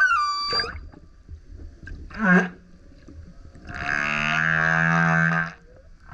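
Male humpback whale singing: a sweeping call at the start, a short call about two seconds in, and a long, low, steady moan held for nearly two seconds.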